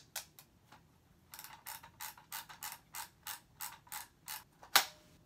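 Airsoft rifle parts being worked by hand, giving a steady run of small ratcheting clicks, about six a second. One louder, sharper click comes near the end.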